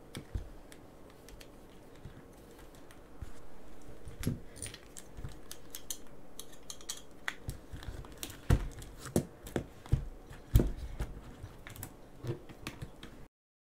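Clicks and taps of a hex driver and the plastic gearbox housing of a Traxxas Slash being handled while its screws are taken out, with several louder knocks about eight to eleven seconds in.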